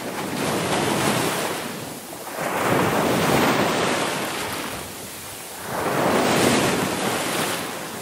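Ocean waves breaking and washing in, a rushing surf that swells and ebbs in three surges.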